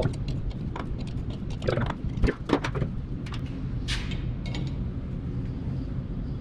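Hand reaming a truck's kingpin bushing: an adjustable reamer turned by a small hand wrench gives irregular metallic clicks and short scrapes as it cuts, with a longer scrape about four seconds in. After about five seconds only a steady low hum is left.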